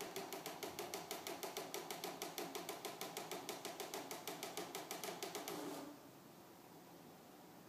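Fax machine printing, with a rapid, even ticking over a hum that stops about six seconds in, leaving faint room hiss.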